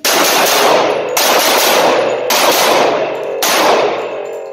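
Four shots from a Smith & Wesson CS45 compact .45 ACP pistol, about a second apart, each followed by heavy echo off concrete range walls. The pistol is cycling hollow-point rounds from its factory magazine without a jam.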